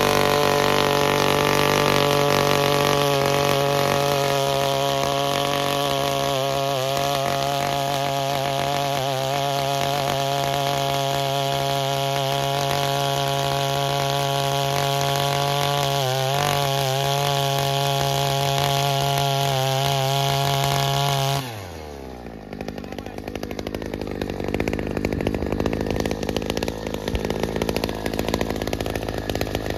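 A 62cc two-stroke earth auger engine held at high revs while the auger bores into soil. About three-quarters of the way through the throttle is released and the engine falls with a dropping pitch to a lower idle.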